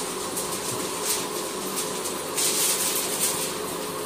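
Sheets of drawing paper rustling as they are handled, loudest for about a second some two and a half seconds in, over a steady machine hum.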